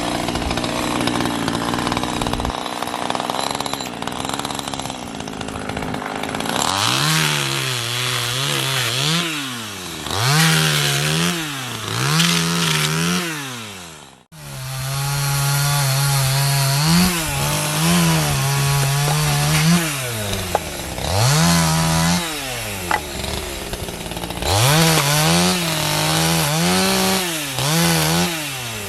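Chainsaw engine repeatedly throttled up to a high whine, held under load, then let back down while cutting firewood. The revs rise and fall over and over, and the sound cuts out abruptly for a moment about halfway through.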